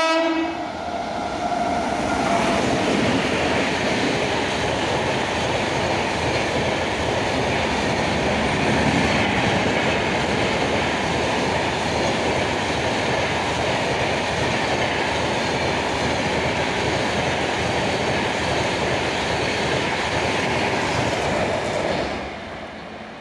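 An electric-locomotive horn ends within the first second. Then an express train of LHB passenger coaches runs through the station at speed, with loud, steady wheel-on-rail noise for about twenty seconds. The noise falls away quickly near the end as the last coach passes.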